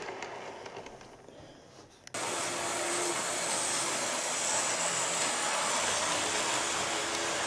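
Model electric train running on the layout: a steady whirr of the locomotive's motor and its wheels on the track, which starts abruptly about two seconds in.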